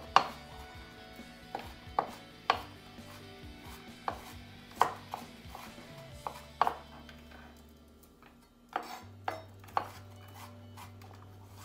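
A kitchen knife chopping fresh ginger on a cutting board: about a dozen sharp knocks at an uneven pace, the loudest right at the start, with a pause about two-thirds of the way through.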